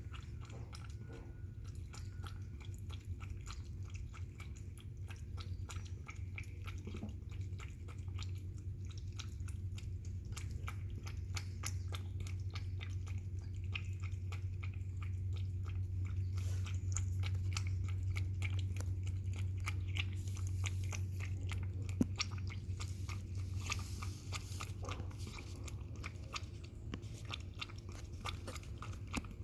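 A cat eating wet cat food, a rapid run of small wet chewing and lapping clicks, over a steady low hum.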